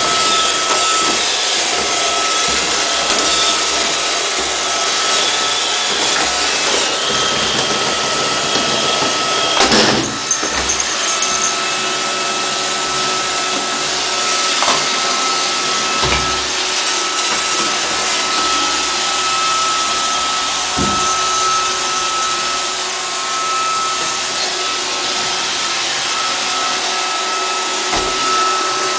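Roomba robot vacuum running steadily with a high whine over its brush and suction hiss, with a few short knocks, the loudest about ten seconds in.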